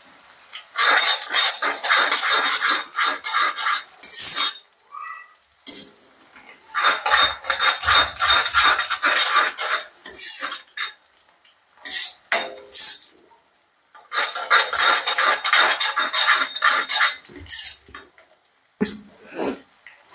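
A cooking spoon scraping and clattering against a kadhai as onion is stir-fried in ghee towards light brown, in three long bursts of quick strokes with short pauses between, and a few single knocks near the end.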